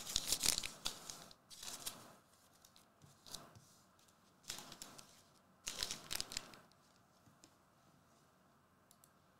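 Trading cards and foil card packs being handled: several short bursts of rustling and sliding card stock and crinkling wrapper, the last about six and a half seconds in.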